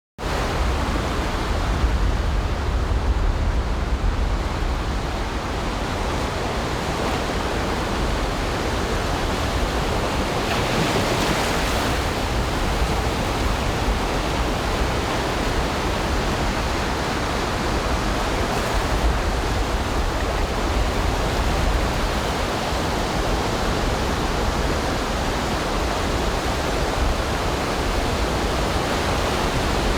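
Ocean surf washing steadily on a beach, with a brighter hiss of a wave breaking about ten seconds in. A low rumble underneath comes and goes.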